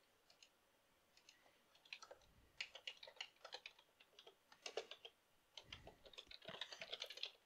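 Faint computer keyboard typing in quick, irregular keystrokes, mixed with a few mouse clicks. The keystrokes thicken from about two seconds in and stop just before the end.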